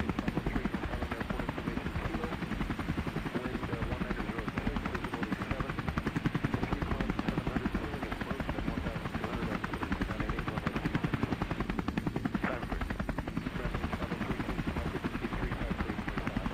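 Helicopter in flight: the rotor's rapid, even beat over a steady engine drone.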